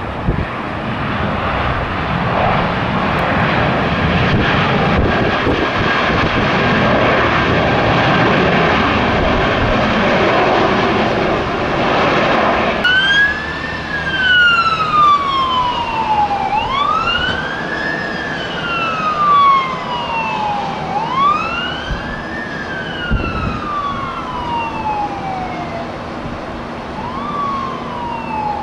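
Jet engines of a landing Airbus A320 running loud, a steady rushing noise that drops away about halfway through. A wailing siren then takes over, each wail rising quickly and falling slowly, about four times.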